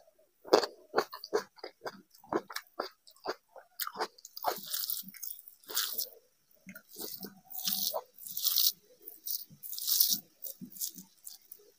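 Close-miked chewing: wet mouth clicks and crunches as a slice of raw tomato is eaten. From about four seconds in come repeated hissing rustles as fingers mix rice with cabbage fry on the plate.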